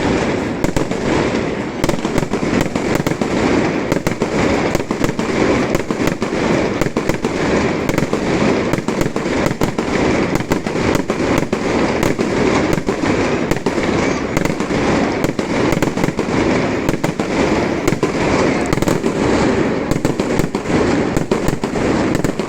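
Fireworks display going off: a dense, unbroken run of rapid bangs, many each second.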